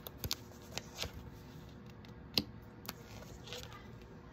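Tarot cards being shuffled and handled: a few scattered light slaps and flicks of the deck, the sharpest about two and a half seconds in.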